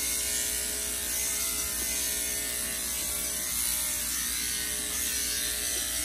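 Corded electric dog grooming clippers fitted with an attachment comb, running steadily as they are worked through a toy poodle puppy's curly coat.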